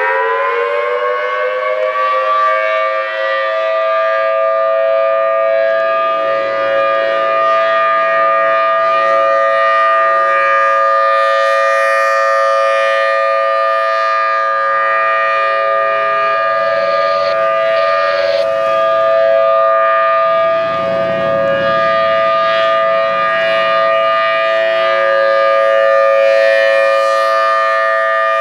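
A Federal Signal Thunderbolt 1000T tornado warning siren sounding a loud steady tone during a test. Its pitch finishes climbing from the wind-up over the first couple of seconds and then holds, with two notes sounding together.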